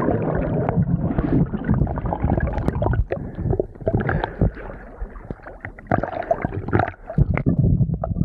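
Sea water sloshing and gurgling around a camera held at the surface as it dips in and out of the water, with irregular small splashes and knocks.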